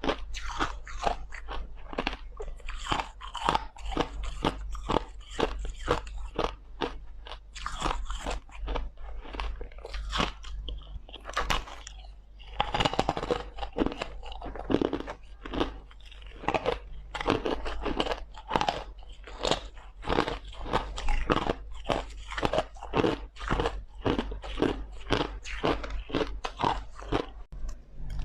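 Crushed ice being bitten and chewed close to the microphone: a rapid, continuous run of crisp crunches, with a short pause a little before halfway.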